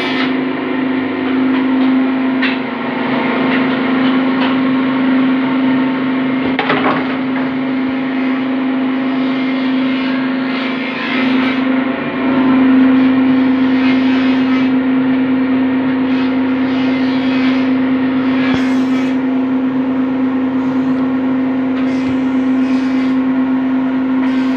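A steady machine hum holding one unchanging pitch, with a few light knocks.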